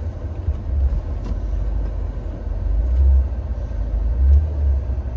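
Car cabin rumble while driving: engine and road noise heard from inside the moving car, a steady low rumble that swells twice in the second half.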